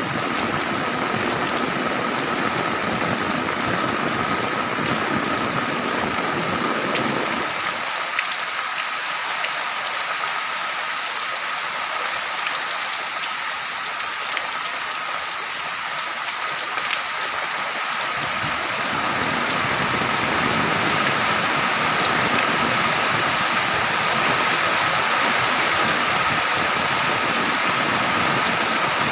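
Heavy rain falling steadily, a dense, even hiss. The low rumble beneath it drops away for about ten seconds in the middle, then returns.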